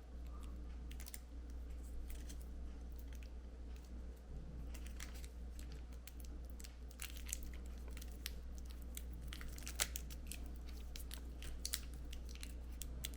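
Clear plastic tape being handled and pressed around a battery pack: irregular crinkling and crackling with scattered small clicks.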